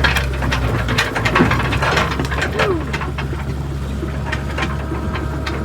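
Excavator diesel engine running steadily under repeated clanks and knocks from the machine working a log, with a brief falling squeal a little past halfway.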